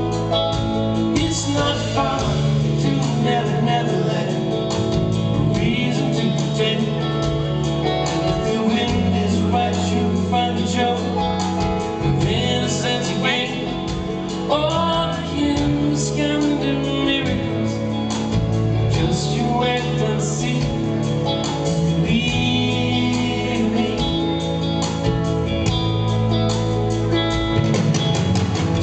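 Live soft-rock band performance, with electric guitar and steady bass under a man singing lead in places.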